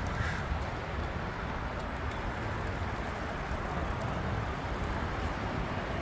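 Steady rushing noise of a bicycle ride: wind on the microphone and tyres rolling on the path, with a fluctuating low rumble.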